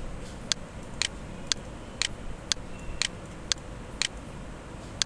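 Steady ticking: sharp, evenly spaced ticks, two a second, over faint background hiss.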